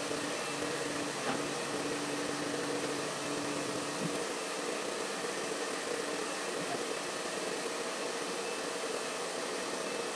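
Handheld hair dryer blowing steadily on a dog's coat, a constant airy rush; its low hum drops away about four seconds in.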